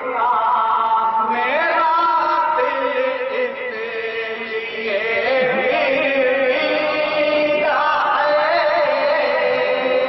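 A group of men singing a naat together, a devotional chant with long, drawn-out melodic notes.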